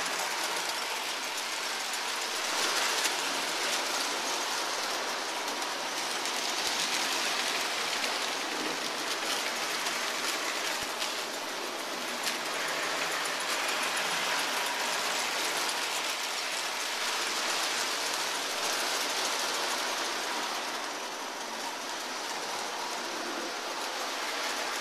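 Lionel model trains running on the layout's track: a steady mechanical running noise of their motors and wheels on the rails.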